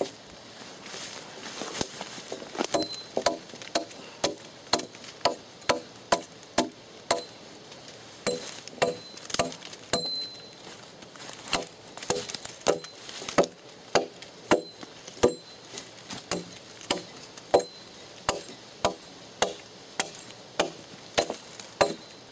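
A hand tool chopping into a felled log in a steady run of sharp strikes, roughly two a second, with a few short pauses.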